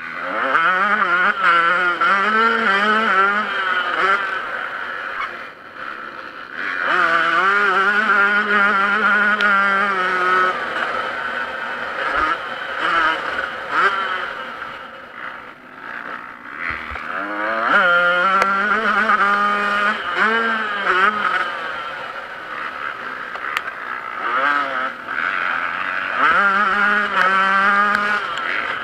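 Yamaha YZ125 two-stroke motocross engine revving hard, its pitch climbing and wavering as the throttle is worked and gears are run through, in four loud surges with the engine easing off between them.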